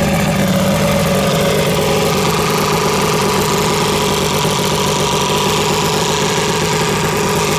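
1976 Mercury inline-six two-stroke outboard engine running steadily at idle.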